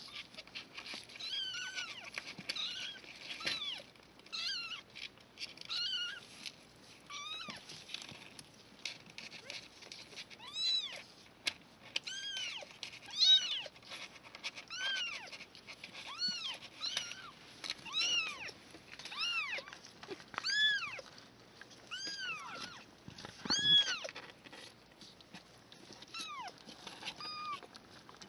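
Three-week-old kittens mewing, a long run of short, high-pitched calls that each rise and fall in pitch, about one a second, several kittens crying in turn.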